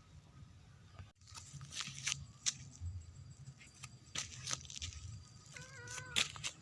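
A cat moving about in a hiding spot: scattered soft clicks, crackles and rustles, with one short mew about five and a half seconds in.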